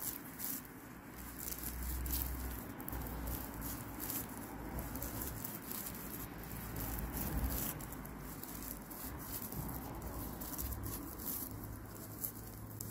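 Raffia yarn crinkling and scratching against a crochet hook and fingers as treble stitches are worked: a run of small, irregular rustly ticks.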